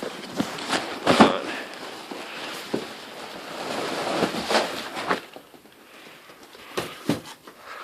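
Packaging being handled during an unboxing: irregular rustling and scraping with a few sharp knocks, the loudest about a second in and a pair near the end, with heavy breathing.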